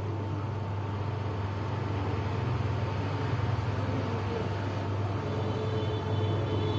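A steady low hum under even background noise, with a faint high tone held throughout.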